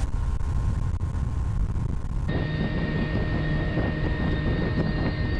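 A 100 HP Honda outboard motor running with the boat under way. About two seconds in the sound changes abruptly to a steadier hum with a thin high whine held over it.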